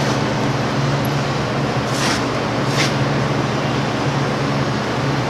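Steady mechanical drone with a low hum, with two light clicks about a second apart near the middle.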